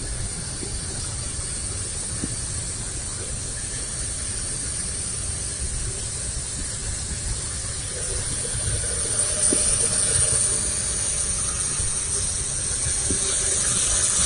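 Small toy quadcopter's propellers whirring in flight, a steady high hiss that grows louder from about eight seconds in and again near the end as it comes closer.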